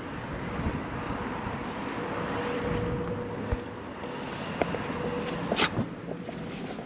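Wind on the microphone over a steady outdoor background with a faint steady hum, then a few sharp clicks and knocks in the second half as someone climbs in through the car's open driver's door.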